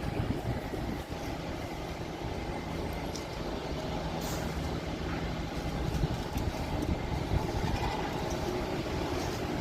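Jet airliner engine noise: a steady low rumble that grows slightly louder near the end.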